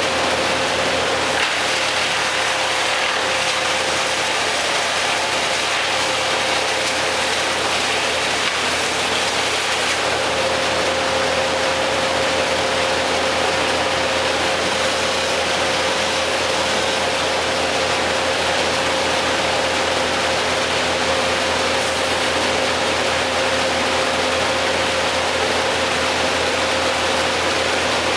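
A machine engine running steadily, with a constant hum over a dense mechanical rattle.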